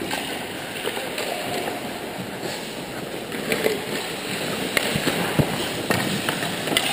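Ice hockey sounds on an indoor rink: skate blades scraping the ice, with several sharp clacks of sticks and puck in the second half as players crowd the net.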